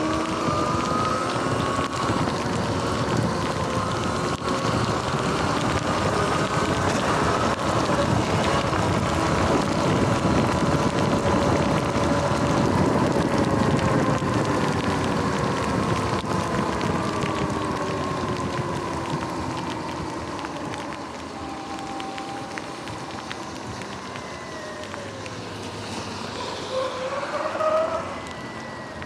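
Sur-Ron electric dirt bike under way on wet pavement: the electric drive whines, its pitch rising and falling with speed, over a steady hiss of wet tyres, rain and wind. It grows quieter from a little past halfway as the bike slows.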